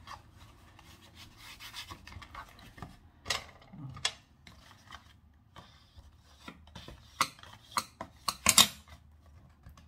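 Kraft paper being rubbed and smoothed by hand onto a glued cardboard box, with a handful of short sharp knocks as the box is turned and set down on the cutting mat, the loudest near the end.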